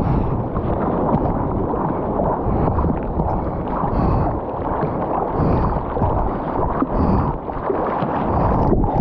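Water sloshing and splashing around a stand-up paddleboard, with wind buffeting the action camera's microphone; a steady, loud rush throughout.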